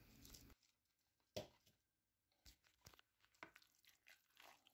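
Near silence, broken by a few faint soft clicks, the clearest about a second and a half in: a wooden spoon stirring a thick salad in a plastic mixing bowl.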